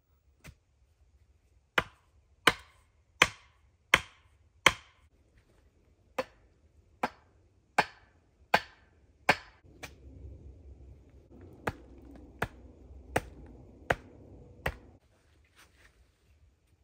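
A tool striking wood, hammering in three sets of five evenly spaced blows about three-quarters of a second apart, each with a short ringing tail.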